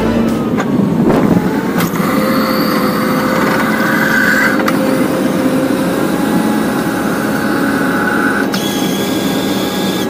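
Tractor running with a reversible plough working the field, heard from the plough frame: a steady rushing noise with engine tones, and a higher whine that comes in twice.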